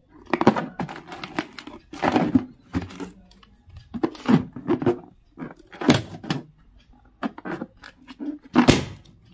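Hands squeezing and rubbing inflated rubber balloons: a series of irregular rubbery squeaks and thumps, the loudest near the end.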